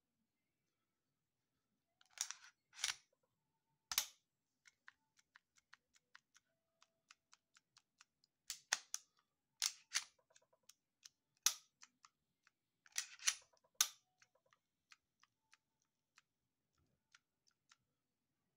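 Sharp mechanical clicks and snaps of a Ruger EC9s pistol being worked by hand, starting about two seconds in. The slide, safety and newly fitted Aegis short-stroke trigger are being function-checked, with a dozen or so louder clacks among many faint ticks.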